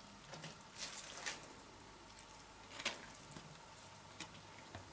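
Faint, scattered wet clicks and squelches of a knife working through a nutria carcass to cut the liver free.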